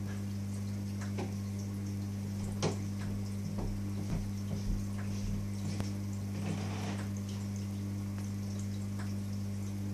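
Reef aquarium equipment running: a steady low electrical hum, like a pump's, under scattered drips and clicks of water, with a short burst of trickling about six to seven seconds in.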